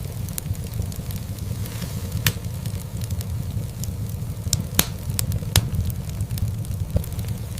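Wood fire burning in a fireplace: a steady low rumble with scattered crackles and a few sharp pops, the loudest about two, five and five and a half seconds in.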